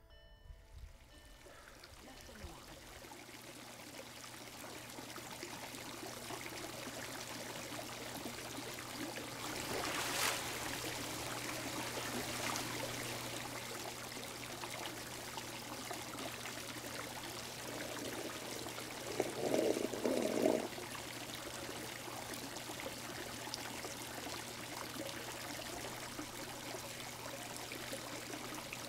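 Hot tub with its water churning: a steady rush and bubbling of water over a steady low hum, fading in over the first few seconds. A short louder noise comes about two-thirds of the way in.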